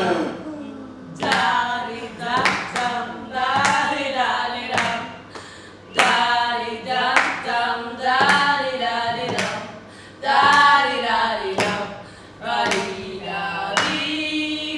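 A man and three women singing together, phrase after phrase with short breaks between.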